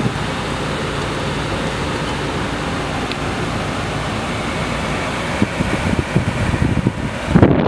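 Steady rushing noise, with a few low thumps in the last couple of seconds, the loudest just before the end.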